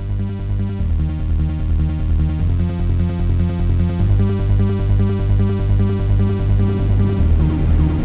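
Electronic background music with a steady pulsing beat and a repeating synth pattern, growing a little louder.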